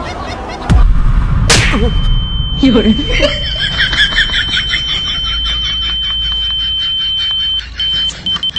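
A loud burst of voice, then a steady high-pitched beep, the comic ear-ringing sound effect for being deafened by a shout, which breaks into short repeated beeps near the end.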